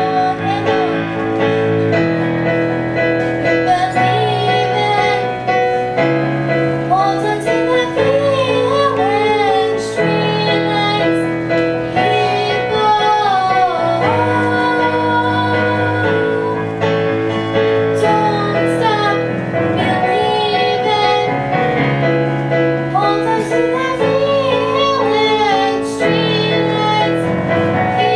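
A young female singer performing a song with vibrato on her held notes, accompanied by sustained piano chords.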